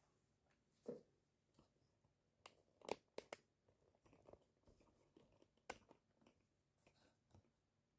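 Faint scattered clicks and light taps of small parts being handled, a cluster of sharper clicks about three seconds in, over near silence.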